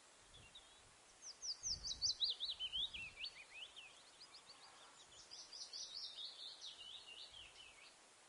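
A small songbird singing twice, each song a quick run of chirping notes that slides down in pitch over two to three seconds. The first song starts about a second in and is the louder; the second follows about five seconds in.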